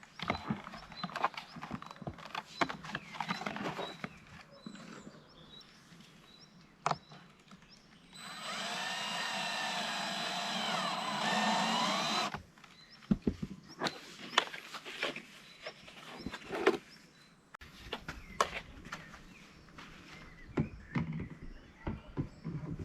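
Plastic shed panels and parts being handled and fitted, with scattered knocks and clicks. About a third of the way in, an electric screwdriver runs for about four seconds, its pitch wavering as the load changes.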